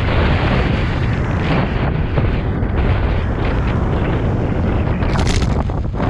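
Wind buffeting the microphone of a camera on a moving bicycle, a dense steady rumble and hiss. About five seconds in a brief louder hiss comes as a car passes close alongside.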